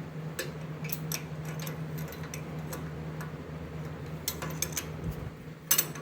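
Light metallic clicks and taps of steel parts being handled: a round steel rod and a modified C-clamp being fitted into a metal bender, with a louder knock near the end. A steady low hum sits under it.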